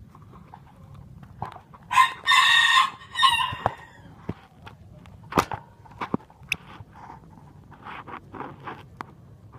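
A rooster crows once about two seconds in: a short rise, a long held note, then a shorter falling tail, much louder than anything else. A few sharp clicks and short soft rustles follow.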